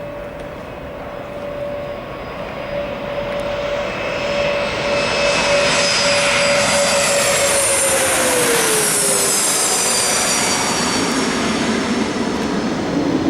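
Bombardier CRJ-200 regional jet's twin GE CF34 turbofans coming in to land, a whine and jet noise growing louder over the first several seconds; the engine tones drop in pitch as it passes, about eight to nine seconds in, and the jet noise stays loud afterwards.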